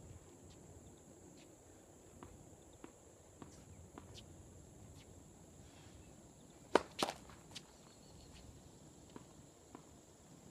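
A tennis ball bounced on a hard court four times, about two a second, then a serve: the racquet hits the ball with a sharp crack about seven seconds in, with a second sharp impact right after it. A few faint ball bounces follow.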